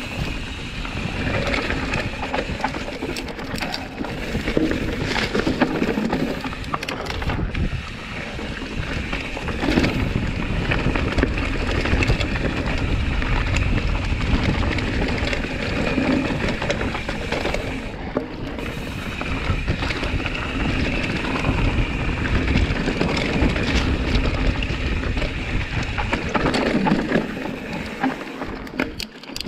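Mountain bike riding fast down a dirt singletrack: a steady rumble of tyres on the trail and wind buffeting the microphone, with frequent rattles and knocks from the bike over roots and bumps.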